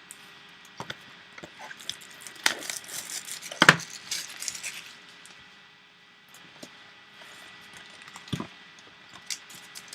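Opening a trading card box and pack by hand: scattered light clicks and taps with some rustling, the sharpest click about three and a half seconds in.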